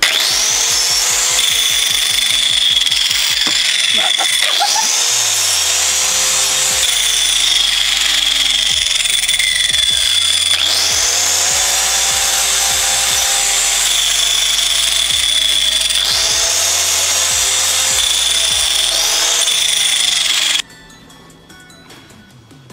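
Angle grinder with a cutting disc running and cutting through ice cream cones, its whine dipping in pitch and recovering several times as the disc bites. Electronic background music with a steady beat plays underneath. The grinder stops about 20 seconds in.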